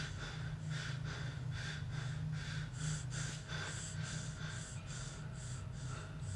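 A man breathing fast and hard, short noisy breaths about three a second: hyperventilating in a panic attack. A steady low hum runs underneath.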